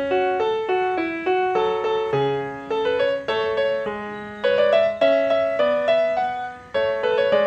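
Background music led by piano-like keyboard notes, a melody played over lower bass notes.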